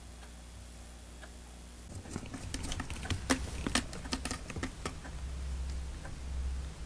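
A kitten's claws scrabbling on a corrugated cardboard cat scratcher: a run of quick, dry clicks and scratches starting about two seconds in and lasting about three seconds.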